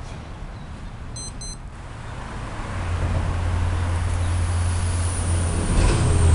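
Road traffic on the highway bridge overhead: a low rumble and rushing that builds from about two and a half seconds in and holds, with a high whine falling in pitch near the end as a vehicle passes. Two short electronic beeps about a second in.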